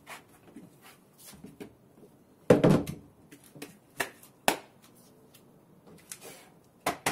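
A hollow plastic ice chest set down on a carpeted floor with a thud about two and a half seconds in, then a few sharp clicks and knocks of handling, with a quick run of them near the end.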